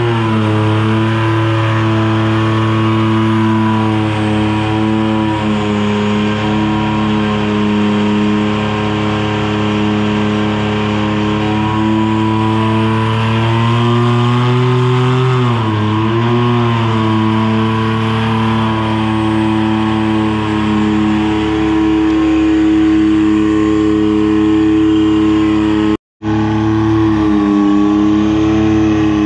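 Can-Am Maverick X3 Max Turbo RR's turbocharged three-cylinder engine running steadily while it warms up on a hub dyno. It breathes through a cat-delete exhaust. About halfway through the pitch dips briefly and comes back up, and near the end the sound cuts out for an instant.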